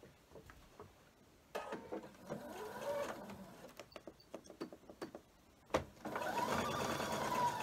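Electric sewing machine stitching a seam through pieced quilt fabric. It starts about a second and a half in, and after a few clicks it runs again, steadier and louder, near the end.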